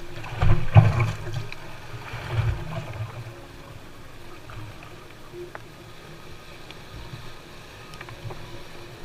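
Choppy water slapping and washing against a bass boat's hull, with several heavy thumps in the first three seconds, then a steadier wash.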